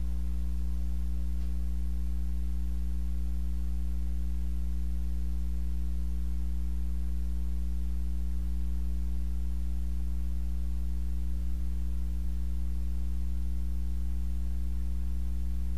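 Steady low electrical hum with fainter higher overtones, unchanging throughout; nothing else is heard.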